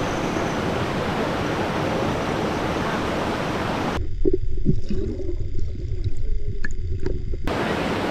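Forest stream rushing over rocks: a steady, full noise of flowing water. From about four seconds in to about seven and a half, the sound turns muffled, as heard underwater, with a few gurgling bubbles. The open stream sound returns near the end.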